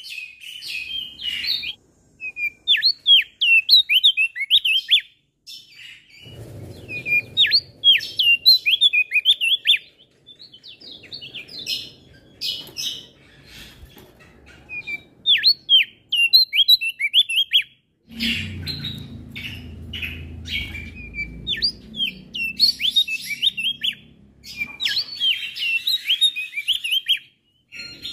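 A male Javan grey-throated white-eye (opior jambul) singing in a series of rapid chattering phrases of quick high rising-and-falling notes, with short pauses between them. A low rumble of background noise comes and goes underneath.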